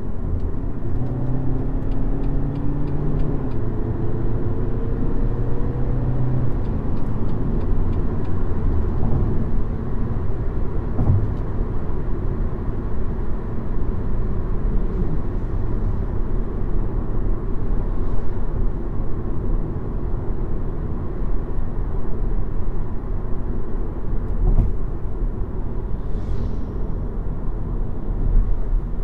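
BMW X1 20d's 2.0-litre four-cylinder diesel under way: the engine note rises in pitch over the first several seconds as the car accelerates in gear, then settles into a steady drone of engine and road noise.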